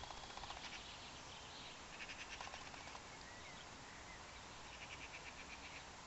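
Faint outdoor ambience of steady hiss, with three short bursts of rapid high chirping from small animals: one at the start, one about two seconds in, and one near the end.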